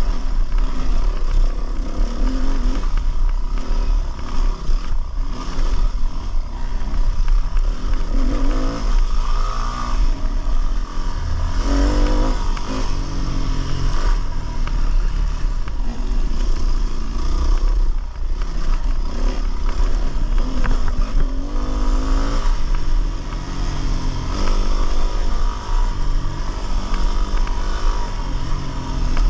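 Dirt bike engine being ridden hard over a rough trail, revving up and dropping back again and again as the throttle is worked.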